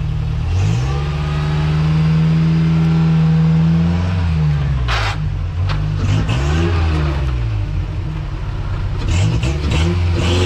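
Off-road rock-crawler buggy's engine revving up and holding, then easing off and blipping several more times as it works over fallen logs on big mud tyres. A sharp knock about five seconds in.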